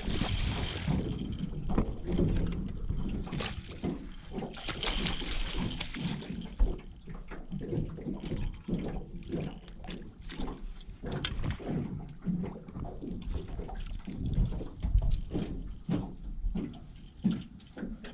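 Hooked blue catfish splashing and thrashing at the water's surface beside a boat, the splashes heaviest at the start and again about five seconds in, with sloshing water and scattered knocks and thumps as the fish is netted and brought aboard.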